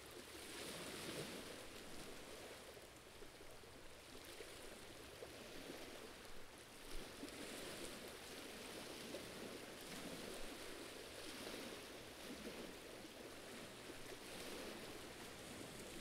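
Faint sea water washing against a rocky shore, a soft, even rush that swells and eases gently.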